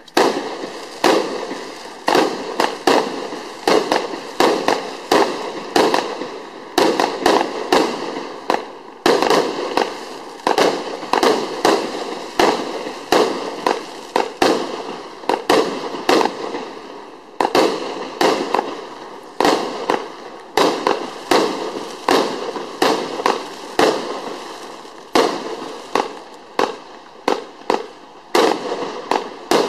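A 120-shot compound fireworks cake firing from 31 mm and 25 mm tubes, a rapid string of sharp reports at about two a second, with only brief gaps.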